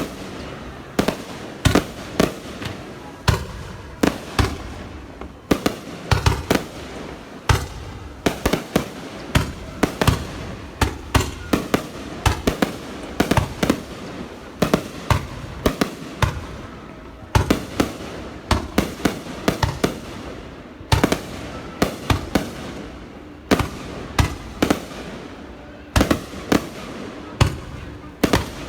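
Fireworks going off, a dense, irregular run of sharp bangs, often several a second, without a pause.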